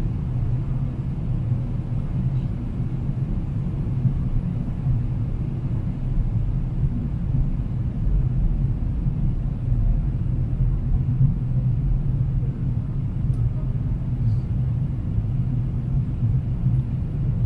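Steady low rumble of a Boeing 777-300ER in flight, heard inside the passenger cabin: engine and airflow noise.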